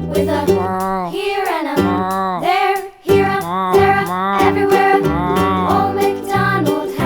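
Children's song: a sung melody over a bouncy instrumental backing, with a brief break about three seconds in.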